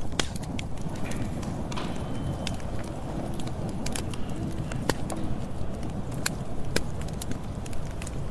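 Campfire burning: a steady low rumble of flames with frequent sharp crackles and pops from the burning wood.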